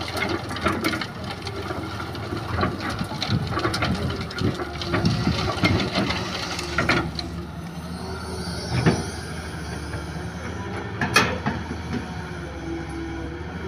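Hitachi 200 excavator's diesel engine running under hydraulic load, with a dense clatter of soil and stones pouring from the bucket onto a sieve screen over a dump truck for the first several seconds. Later two sharp knocks sound, about nine and eleven seconds in, as the machine goes back to digging.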